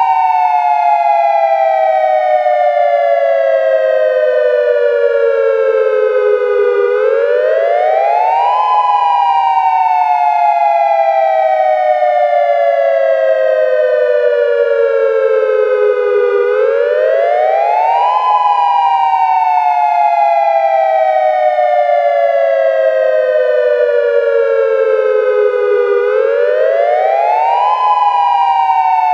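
Synthesized Federal Signal Modulator II outdoor warning siren sounding its wail signal in dual tone: two close tones sweep together, rising quickly over about two seconds, then falling slowly for about eight seconds, three times over.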